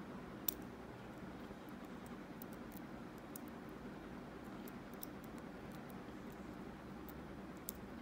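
Scattered small, sharp metallic clicks and ticks of a lock pick working the wafers of a wafer cam lock held under tension. The clicks come irregularly, the sharpest about half a second in and another near the end, over a steady low background noise.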